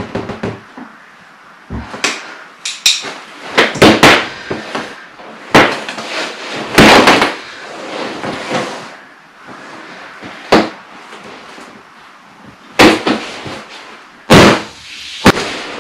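Chopsticks jabbing and striking the taut vinyl of an inflated cocktail-glass pool float: about a dozen sharp thwacks at irregular intervals, some followed by a brief rustle of vinyl.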